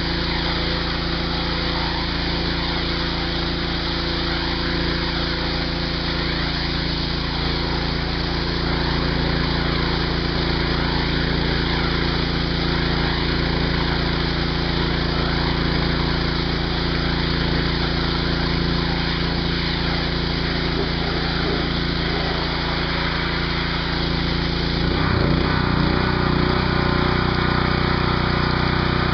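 Gas-engine pressure washer, warmed up, running steadily while its wand sprays water against a garage door with a continuous hiss. Near the end the spray stops and the engine's note changes.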